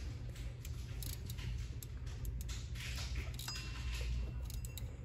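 Faint, scattered metallic clicks of a socket and ratchet being worked onto the rounded-off stud on an A/C compressor, over a steady low hum. The socket won't go on over the stud's damaged threads.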